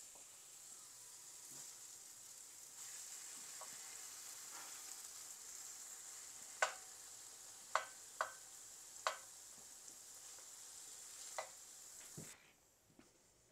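Mushrooms and leeks sizzling faintly in a frying pan, with five sharp clicks in the middle stretch. The sizzling cuts off suddenly near the end.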